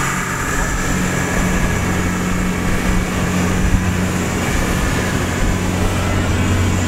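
Fishing boat's engine running steadily with a low, even hum, under a broad rush of wind and water.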